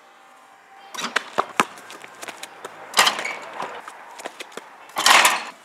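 Knocks and scuffs from outdoor basketball play: a quick run of sharp knocks about a second in, then two louder, longer scraping rushes, near three seconds and again near five.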